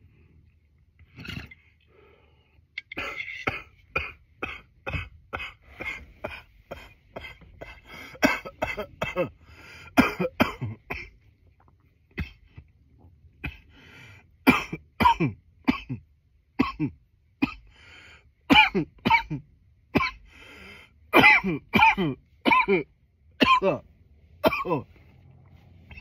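A man coughing over and over in fits of short coughs, about two a second, with a pause of a couple of seconds about halfway through; the later coughs are louder.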